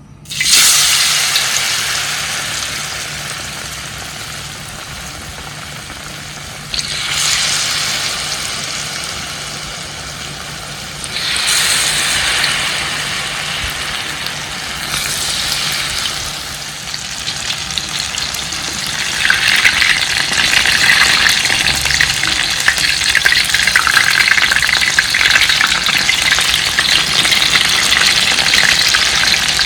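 Banana fritters (pisang goreng) sizzling in hot oil. The sizzle starts suddenly, jumps up again several times, and is loudest and most crackly over the last ten seconds or so.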